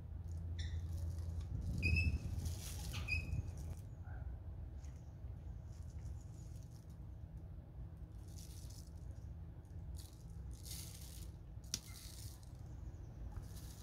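Intermittent rustling and light handling noises over a steady low hum, with a few short high chirps in the first few seconds.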